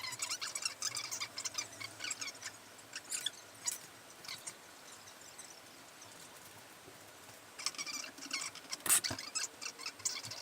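Irregular light clicks and small squeaks of hand tools and bicycle parts during hands-on tightening of the handlebar fittings. They come in clusters with a lull in the middle, and the sharpest click falls about nine seconds in.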